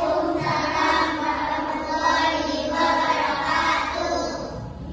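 Group of children singing together, in phrases of a second or two.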